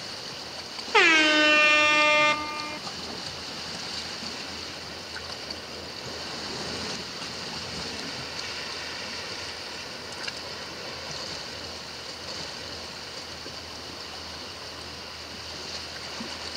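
Waves washing steadily against a rocky shore. About a second in, a loud horn-like tone sweeps down in pitch, then holds steady for about a second and a half before stopping.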